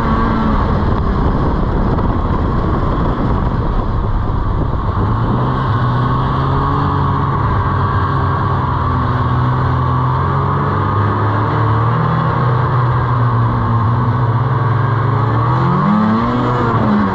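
Snowmobile engine running under way over a steady rushing noise. Its pitch falls at the start, holds lower and fairly even through the middle, then rises as it revs up near the end and drops again.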